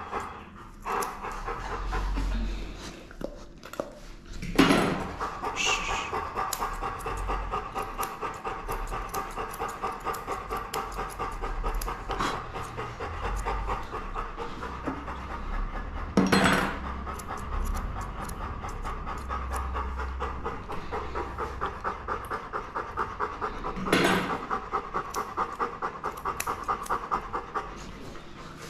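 Bernese mountain dog panting steadily, about two breaths a second. Three sharp knocks stand out above the panting, at about five, sixteen and twenty-four seconds in.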